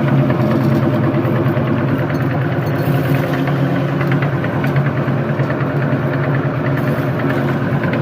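Electric meat grinder's motor running with a steady hum, with small crackles throughout as candy is crushed in the grinder.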